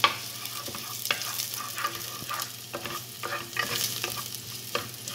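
Minced garlic sizzling in hot olive oil in a nonstick pot, with a wooden spatula stirring it, knocking and scraping against the pot at irregular intervals.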